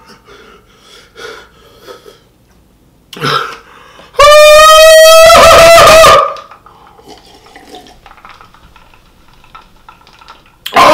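A man's long, high-pitched wail held at a steady pitch for about two seconds, a pained cry at the burn of extremely spicy hot chicken. Before it come a short vocal sound and quieter small noises.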